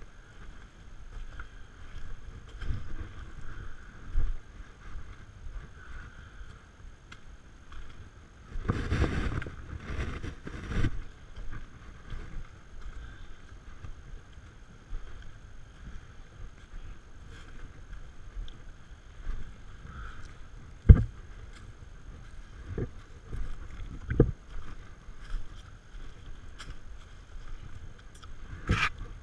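Footsteps of hikers in motocross boots on a rocky, leaf-strewn trail, with irregular thumps and rubbing of the worn camera as its wearer walks. A louder rustle about nine seconds in, and a few sharp knocks near the end.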